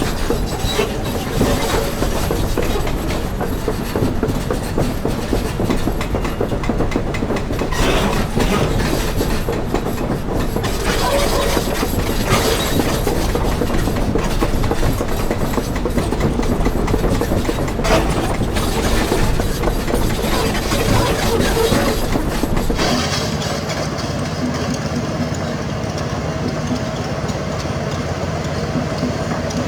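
Large Doosan crawler excavator's diesel engine running hard with its hydraulics working, a heavy continuous rumble with a few brief louder surges. About three quarters of the way through the deepest rumble drops away, leaving a steadier, lower-pitched hum as the engine eases off.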